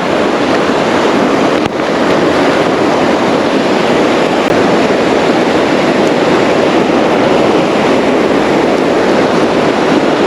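Steady rushing of creek water, with a single brief click about two seconds in.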